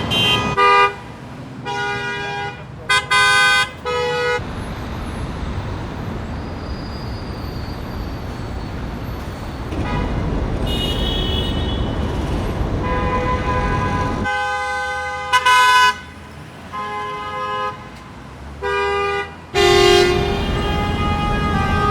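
Car horns honking in gridlocked city traffic: a cluster of short toots at the start, then several more blasts of different pitches later on, ending in one long held honk near the end. Underneath runs a steady rumble of idling and slow-moving traffic, heard alone for several seconds in the middle.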